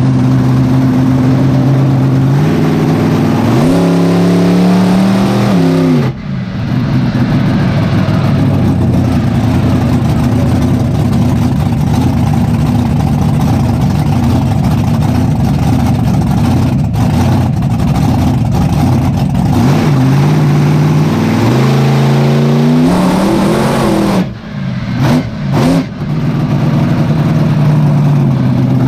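A 1500-horsepower monster truck engine, heard from inside the cab. It idles steadily, revs up with a rising pitch, then drops off sharply about six seconds in. It then runs hard with a dense, rough sound for about fifteen seconds, rises again, and cuts out and picks up several times near the end.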